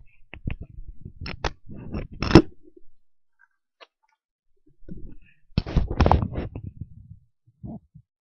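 Close handling noise on a microphone: clusters of clicks, knocks and scrapes as it is set down and a pair of headphones is taken off and pressed against it, in two bursts with a pause of about two seconds between.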